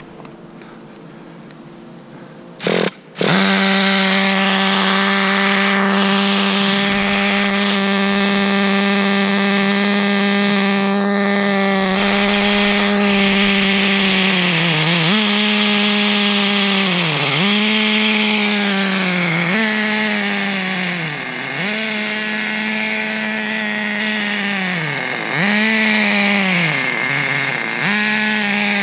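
The small single-cylinder two-stroke nitro glow engine of a Traxxas Nitro 4-Tec 3.3 RC car comes in loud about three seconds in and holds high, steady revs. From about halfway it repeatedly drops in revs and climbs back every couple of seconds as the throttle is let off and reapplied. It is tuned a little rich on the low-speed needle, in the owner's view.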